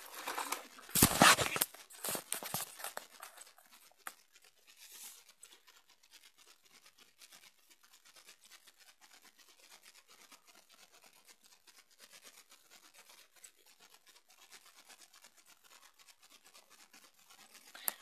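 Handheld camera being handled and rubbed close to its microphone: scratchy rubbing and rustling, loudest for a couple of seconds about a second in, then a faint crackle with scattered clicks.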